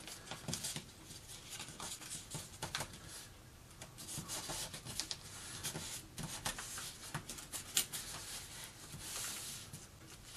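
A sheet of paper crinkling and rustling as fingers fold an edge over to a crease and rub along the folds to press them flat. The sound is a run of small crackles and scrapes.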